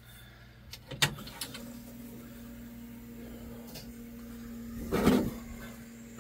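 A sharp click about a second in, then a faint steady electric hum on one pitch, with a short louder sound just after five seconds. This fits a truck's ignition being switched on before starting.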